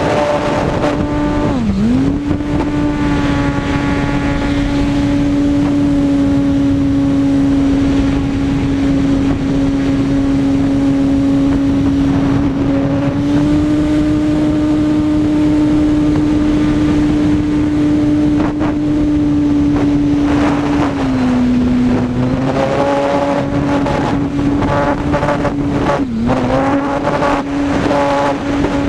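Electric brushless motor and propeller of an E-flite Apprentice S 15E RC plane in flight, a loud steady whine with wind rush. The pitch dips sharply with the throttle about two seconds in and again near the end, and sags for a moment a little before that.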